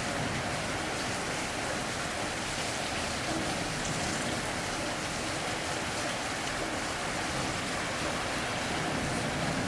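Rain falling steadily in a storm, an even hiss of water with no breaks.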